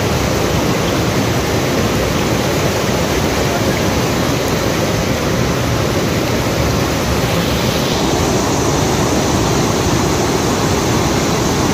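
Steady rush of river water pouring over a weir, an even continuous roar with no breaks.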